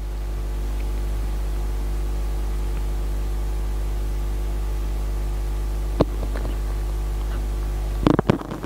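Steady electrical mains hum with faint hiss from the mosque's sound system while the prayer is silent. A sharp click comes about six seconds in and a few knocks near the end.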